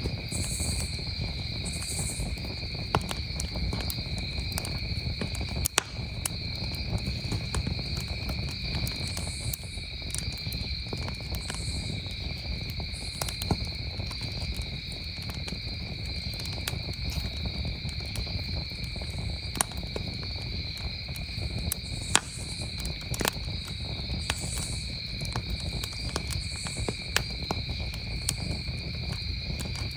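Campfire crackling with scattered sharp pops over a steady chorus of crickets chirring at two pitches, with a higher insect call pulsing every second or two and a low rumble underneath.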